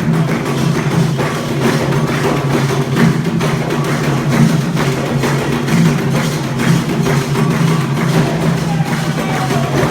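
Percussive music: drums and sharp wood-block-like strikes in a busy rhythm over a steady low drone.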